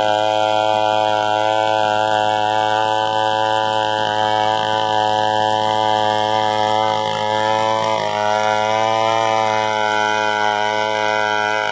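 Chainsaw running at a steady pitch, its note dipping and wobbling briefly about seven to eight seconds in.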